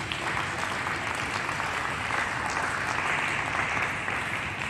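Audience applauding, building to its loudest about two to three seconds in and easing off slightly near the end.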